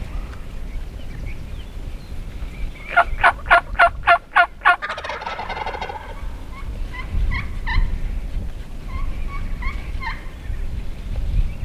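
Wild turkey gobbler gobbling once about three seconds in, a loud, fast run of pulses trailing off into a rattle. A few softer short turkey calls follow.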